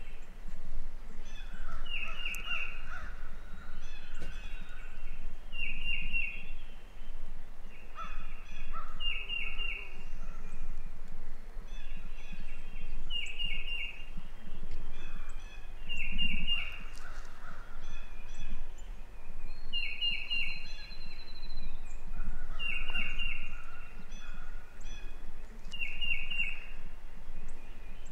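Wild turkey calls from a strutting gobbler's field, with groups of short call notes repeating every two to three seconds over a steady low rumble.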